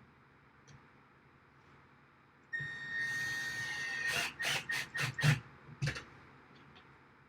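Electric drill drilling a rack rail: it starts suddenly with a steady whine for about a second and a half, then gives about six short, sharp bursts.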